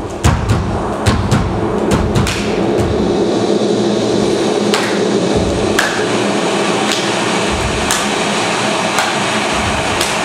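Irregular sharp knocks and clicks over a steady droning noise, with heavy low thuds in the first two seconds and low rumbles coming and going later.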